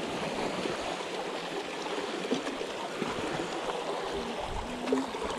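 Water washing and trickling over shoreline rocks: a steady rush, with two short low hums near the end.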